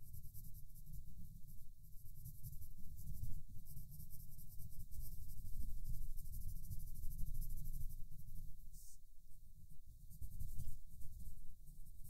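Colored pencil scratching on paper in rapid, continuous shading strokes, picked up close by the microphone, over a low rumble.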